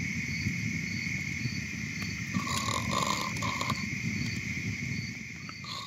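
Wood campfire crackling in a metal fire ring, with night insects trilling steadily and pulsing at a regular beat. A few short calls from an animal come a little past halfway, and the sound begins to fade out near the end.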